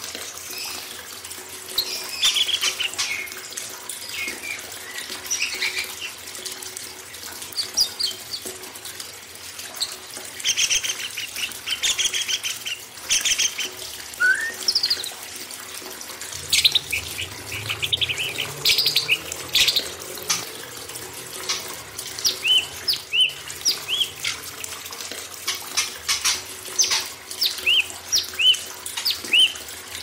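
Several songbirds chirping and whistling in short, quick notes, many sweeping down in pitch, one after another throughout. Under them runs the steady hiss of flowing water.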